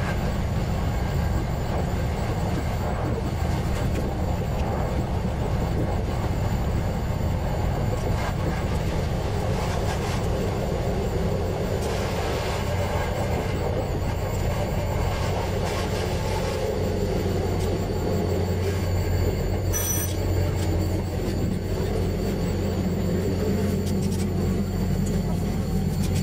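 KTR700-series diesel railcar running along the line: a steady engine drone with rail and running noise. A brief high-pitched tone sounds about three-quarters of the way through.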